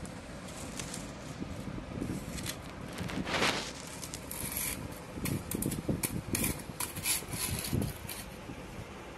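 Rubbing and scraping handling sounds: a swish about three seconds in, then a run of short scrapes and knocks in the second half, over steady background noise.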